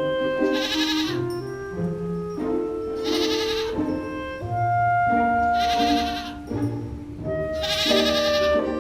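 Bleating from a sheep or goat–type farm animal: four quavering calls, each under a second, about two and a half seconds apart, over background music.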